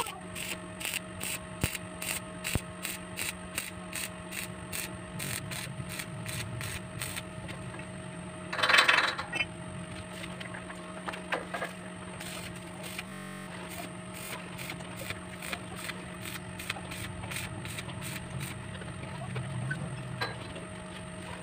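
Stick welding on galvanized steel pipe: a brief arc at the start, then a steady hum and whine with regular sharp ticks, about two or three a second, and one louder noisy burst about nine seconds in.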